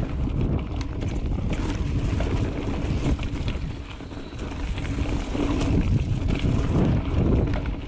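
Mountain bike riding on a dirt trail: wind buffeting the microphone over a low rumble, with frequent small clicks and rattles. It eases about four seconds in and grows louder over the last few seconds.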